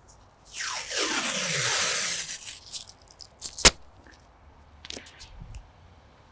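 Masking tape pulled off the roll in one long ripping strip of about two seconds, its pitch falling as it goes. Then a single sharp snap, the loudest sound, and a few light ticks as the tape is laid onto the bumper edge.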